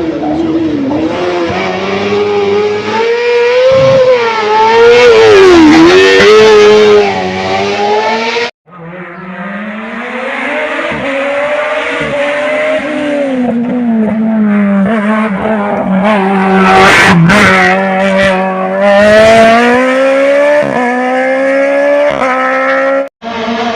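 Race car engine at hard throttle, its pitch repeatedly climbing and dropping as the car accelerates and brakes through slalom chicanes. The sound cuts off abruptly about a third of the way in, then a similar engine run follows.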